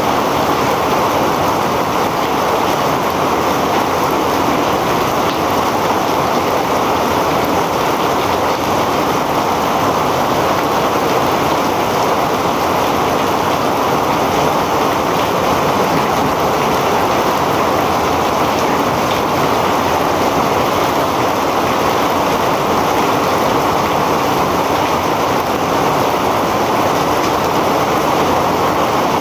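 Heavy rain pouring down steadily: a dense, even hiss with no separate drops or gusts standing out.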